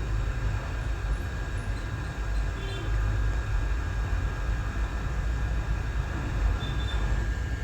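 Hot air rework gun blowing a steady stream of hot air at reduced airflow, heating a phone's charging jack to melt its solder: a steady low rush with a faint thin whine.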